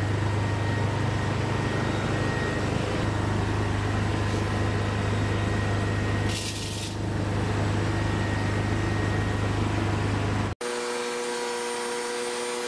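Electric induction furnace running while melting steel: a steady low hum under a wide rushing noise, with a brief dip and hiss just after six seconds. After a sudden cut near the end it changes to a steadier hum with several fixed tones.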